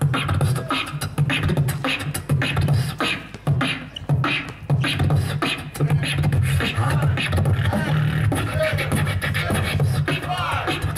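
Solo beatboxing through a microphone and PA: deep pulsing bass sounds with sharp snare and hi-hat clicks in a steady beat. In the second half, wavering pitched vocal sounds ride over the bass.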